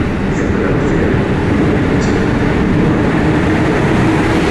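Amtrak Acela Express trainset rolling out past the platform: a steady low rumble of wheels on rail and passing cars, ending with its power car going by. A few faint, brief high squeaks come in the first two seconds.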